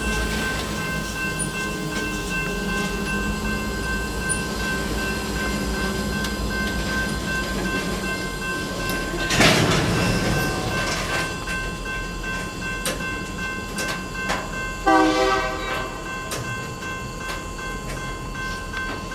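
Freight cars rolling slowly to a stop. About nine seconds in comes a loud rush of air as the brake pipe dumps into emergency, an undesired emergency application set off by a kicker (a faulty brake valve) when a light brake application was made. About fifteen seconds in there is a short horn blast.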